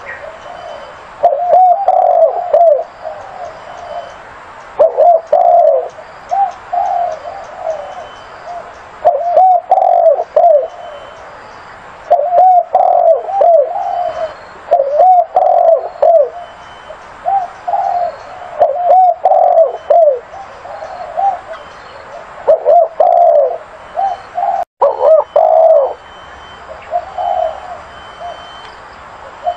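Zebra dove cooing: rapid clusters of short, rippling coo notes, phrase after phrase every second or two, with brief pauses between.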